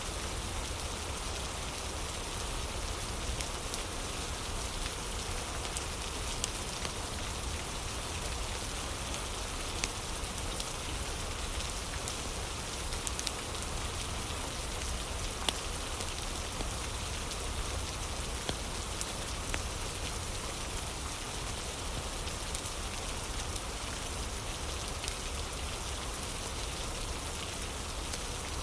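Steady rain falling on a surface, with scattered sharp ticks and pops dotted irregularly through it.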